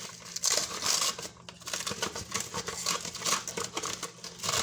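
Plastic cling wrap crinkling and rustling as it is pulled off the roll and stretched over a bowl to cover it: a dense, irregular crackle.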